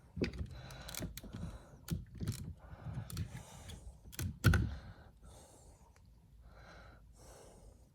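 Light plastic clicks, rustling and small knocks from hands handling car door trim pieces and wiring connectors, with one louder knock about four and a half seconds in.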